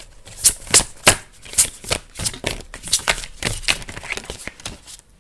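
A tarot deck being shuffled by hand: a quick, irregular run of sharp snaps and slaps of the cards, a few a second, stopping just before the end.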